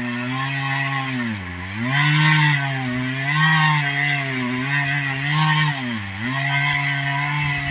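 Two-stroke chainsaw cutting through a large pine tree during a felling cut, running near full throttle with a sharp chain. The engine speed dips sharply twice and recovers, and wavers in between.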